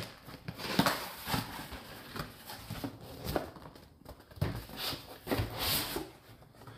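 A cardboard laptop box being tipped over and opened by hand: an irregular run of scrapes, rustles and light knocks of the cardboard box and lid.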